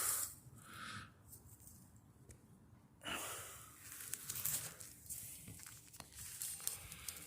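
Faint rustling and tearing of dry, hairy palm-trunk fibre being pulled and trimmed away, quieter for a couple of seconds and then picking up again about three seconds in.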